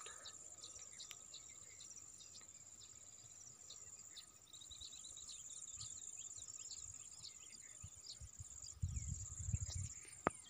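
Insects trilling steadily at a high pitch, with many short bird chirps scattered through. About nine seconds in come a few low thumps, and there is one sharp click near the end.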